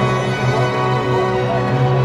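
Background music with steady held tones and a deep sustained bass.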